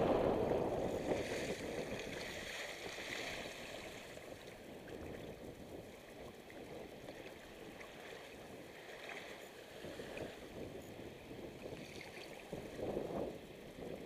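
Choppy water splashing against the hull of a sailing kayak, with wind noise on the microphone. Loudest at the start, easing off, then a louder burst of splashing near the end.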